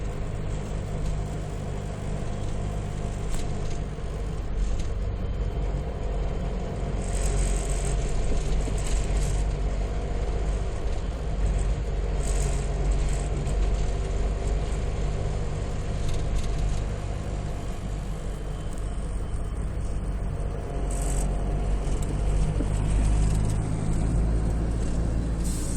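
Road vehicle engine running with a steady low rumble that swells a little now and then, with a few brief hisses over it.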